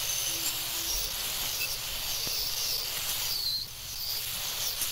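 Angle grinder with a wire wheel scrubbing welded horseshoe steel, a steady hiss that eases off briefly about three and a half seconds in.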